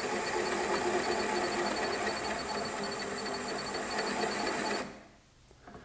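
Nova Voyager 18-inch drill press running a 2-inch Forstner bit into hardwood, its electronic depth stop beeping rapidly as the bit closes on the set depth. A little before the end the motor, cutting and beeping stop all at once as the machine shuts itself off at the final hole depth.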